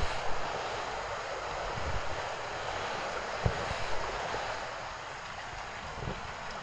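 Footsteps in fresh snow, heard as soft, irregular thuds under a steady rushing background noise.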